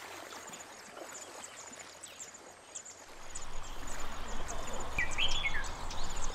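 Outdoor birdsong: many short, high chirps, with a different bird calling a few notes about five seconds in. A low rushing noise comes up from about three seconds in.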